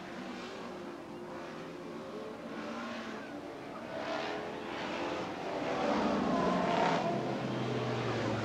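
Several off-road race truck engines running hard around a dirt track, their revs rising and falling as they race, growing louder near the end.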